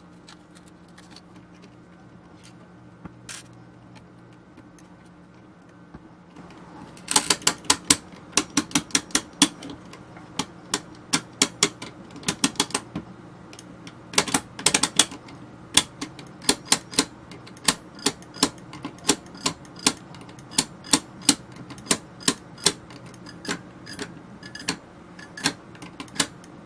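Rotary selector knob on an opened VHF radio control box being turned, its detent and geared mechanism clicking. After a quiet start, sharp clicks begin about seven seconds in and keep coming irregularly, a few a second with quick runs now and then.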